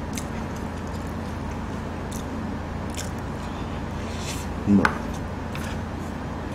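Close-up eating sounds of a man eating rice with a wooden spoon: faint chewing and a few light utensil clicks over a steady background hum, with one short, louder mouth sound a little under five seconds in.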